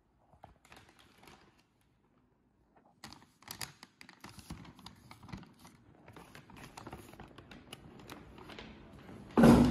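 Kraft paper bag rustling and crinkling as books and magazines are slid and packed into it, with many small taps and clicks of paper and book edges. A louder sudden thump comes near the end.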